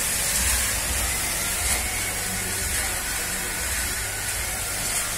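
Chana roaster machine running, roasted chickpeas tumbling and sliding in its turning drum with a steady rushing hiss over a low hum.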